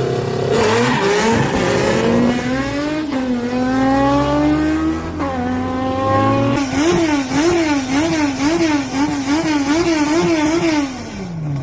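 Chevrolet Opala straight-six engine revving high at full throttle, its pitch climbing in long sweeps with two sudden drops like gear changes. It then revs up and down about twice a second before the revs fall away near the end.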